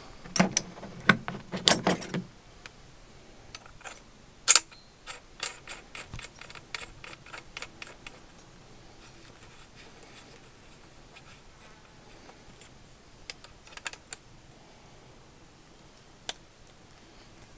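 Choke tube being threaded into an Adler shotgun's muzzle and tightened with a choke key: scattered small metallic clicks and ticks of metal on metal, with a sharper click about four and a half seconds in and a run of quick ticks just after.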